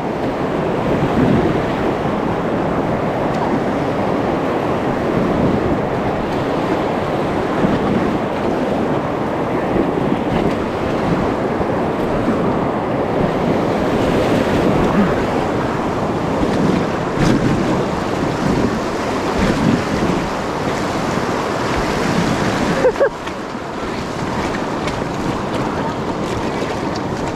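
Whitewater rapids rushing and splashing around an inflatable kayak, with wind buffeting the microphone. The rush eases a little near the end.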